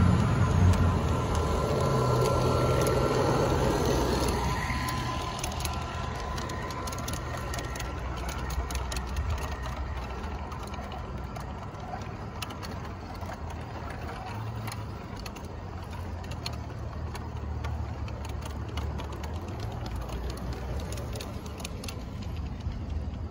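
G-scale model train passing close by: an Aristocraft Dash 9 diesel locomotive's running sound fades over the first four seconds. Its freight and passenger cars then roll past with many irregular wheel clicks over the rail joints and switches, over a low steady hum.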